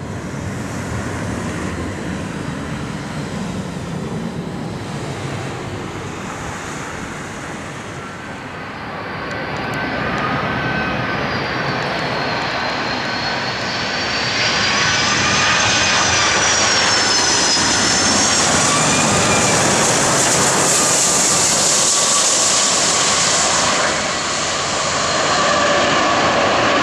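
Jet airliner's engines on the runway: the noise builds over several seconds, then holds loud with a high whine that wavers in pitch, and eases near the end.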